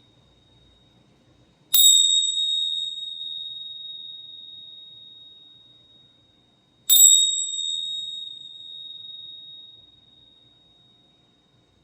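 Small high-pitched metal bell struck twice, about five seconds apart; each strike rings one clear tone that fades slowly over several seconds, with the tail of an earlier ring dying away at the start.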